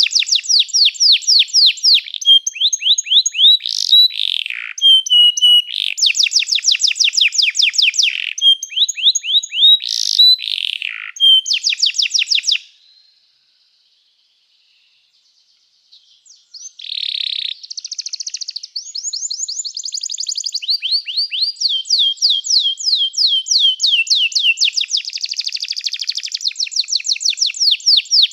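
Domestic canary singing: long rolling trills of rapid repeated notes mixed with short whistled phrases. The song breaks off for about three seconds of silence midway, then starts again.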